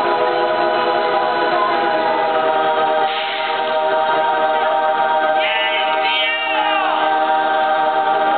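A large crowd singing together a cappella in held, sustained chords. The chord changes about three seconds in, and some higher voices slide across pitches past the middle.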